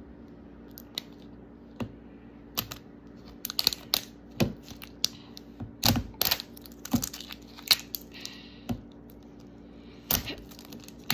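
Irregular clicks, taps and crinkles of a plastic Mini Brands surprise capsule and its wrapping being worked open by hand, with a short rustle of tearing wrap about eight seconds in. The capsule's zip tab is hard to open.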